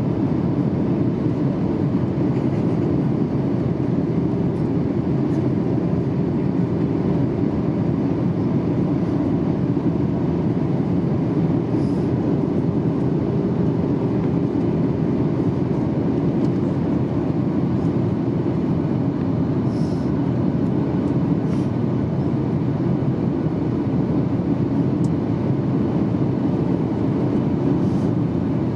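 Steady in-flight cabin noise of a Boeing 737-800 heard from a window seat over the wing: its CFM56-7B turbofans and the airflow blend into a dense, low rush that holds an even level. A few faint high clicks sound now and then.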